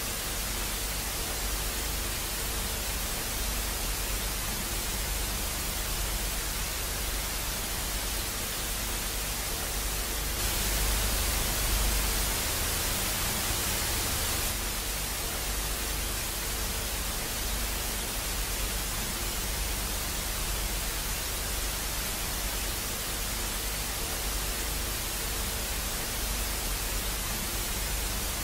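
Steady hiss of off-air television static with a low hum under it. The hiss grows a little louder about ten seconds in, for four seconds or so.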